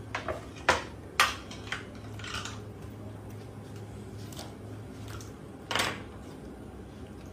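Metal tongs and a serving spoon clinking and scraping against a platter as a whole cooked octopus is lifted off it. There are several sharp clinks in the first two seconds and one longer, louder clatter near six seconds, over a steady low hum.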